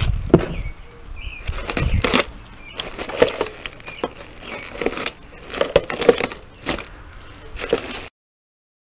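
Plastic packing film crinkling and rustling in irregular bursts as it is handled and pulled open around treadmill parts, with a few sharp crackles. It cuts off abruptly about eight seconds in.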